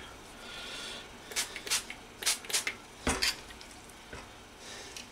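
Metal burger ring molds and a push-down burger press clinking and knocking as the vegetable mix is pressed down into the rings on a baking tray: a handful of short, light knocks, the strongest about three seconds in.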